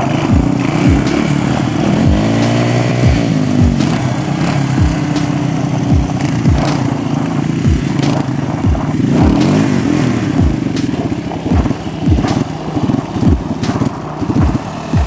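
Engines of a Yamaha Warrior quad and a Honda three-wheeler running and revving as they pull wheelies, the engine pitch rising and falling several times.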